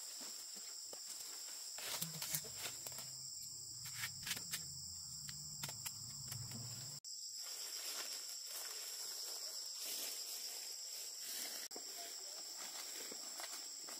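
Steady, high-pitched chorus of insects chirring. Over it, a scatter of sharp clicks and knocks and a low hum come in the first half and stop about seven seconds in.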